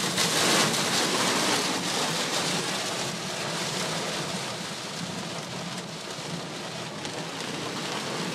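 Heavy desert downpour: a dense, steady hiss of rain, a little louder in the first second or so.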